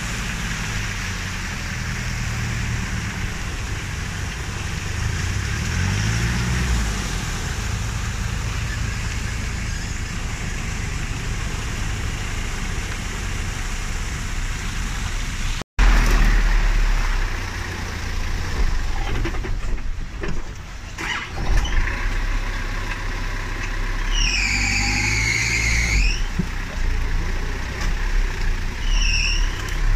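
Engine of a 4x4 off-road vehicle running at low revs, rising briefly a few seconds in. A short high squeal sounds about two-thirds of the way through, and another brief one comes near the end.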